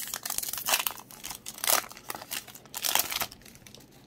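Foil wrapper of a Pokémon trading-card booster pack being torn open and crinkled by hand. It is a run of crackling crinkles, loudest three times about a second apart, and it dies away a little after three seconds in.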